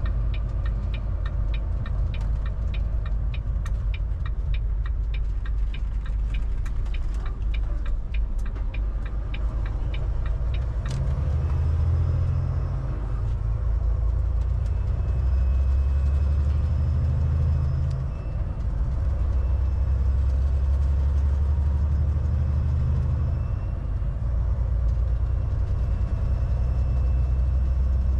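Semi truck's diesel engine heard from inside the cab. For the first ten seconds or so a steady ticking runs at about two a second, like a turn-signal flasher. From about eleven seconds the engine's low drone swells in several stretches with short dips between, as the truck pulls away and gathers speed.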